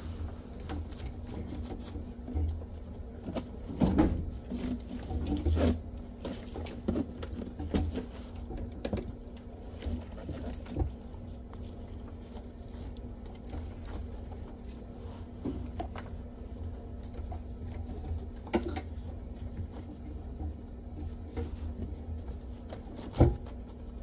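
Scattered small clicks and knocks over a steady low hum, with a few louder thumps about four and five seconds in and near the end.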